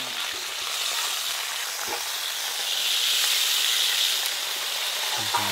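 Hot oil sizzling steadily under a whole masala-coated pomfret frying on a flat griddle as it is turned over with spatulas; the sizzle grows louder about halfway through.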